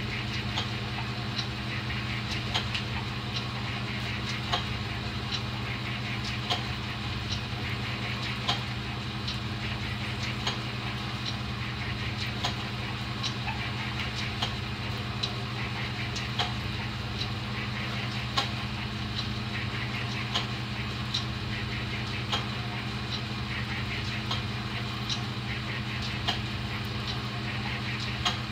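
Motor-driven Champion drill press running in back gear, its bit turning slowly as it drills into steel: a steady hum with a light tick about every two seconds.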